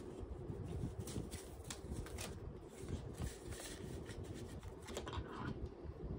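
Paper banknotes being handled and slid into a clear plastic binder pocket: light rustling and crinkling with scattered small ticks.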